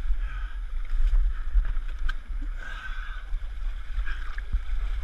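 Low rumble of wind and handling noise on a body-worn camera's microphone, with muddy water sloshing as a runner wades through it.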